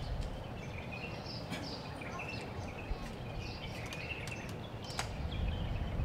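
Outdoor ambience of many small birds chirping over a steady low rumble of background noise, with a few light clicks.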